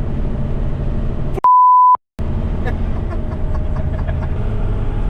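Diesel big-rig engine running steadily, heard from inside the cab. About a second and a half in, the sound cuts out and a loud half-second 1 kHz beep plays: a censor bleep laid over muted audio.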